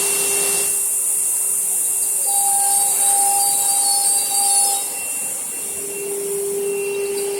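ATC wood CNC router running: a steady high-pitched hiss with several steady tones from the machine, dropping a little in level about five seconds in.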